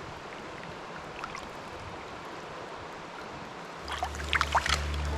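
Stream water running steadily over rocks. About four seconds in, background music with deep, sustained bass notes comes in over it.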